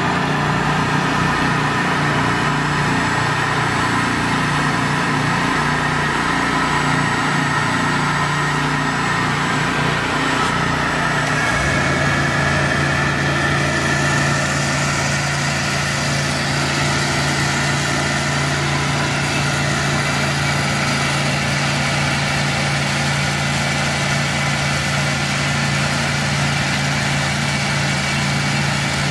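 Engine-driven thawing equipment running steadily: the hot-water pressure washer and vacuum tank system powering the ThawHead. About twelve seconds in, the low rumble drops away and a smoother, steady hum remains.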